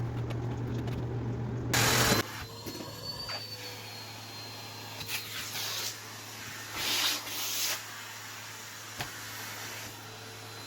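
Household vacuum cleaner running. There is a loud burst of noise about two seconds in, with a whine that fades away after it, then a quieter steady run with two short louder surges of hiss around five and seven seconds.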